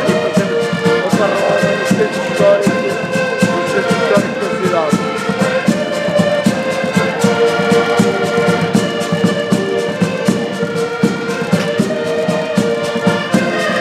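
An ensemble of piano accordions and diatonic button accordions playing a tune together in a steady rhythm, with sustained reed chords over a pulsing bass and a regular beat of short percussion clicks.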